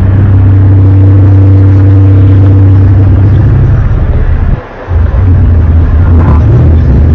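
Loud, low droning groan of one of the unexplained 'strange sky sounds' reported around the world since 2011: a few steady deep tones held together, often heard as metallic. It breaks off briefly about four and a half seconds in, then resumes.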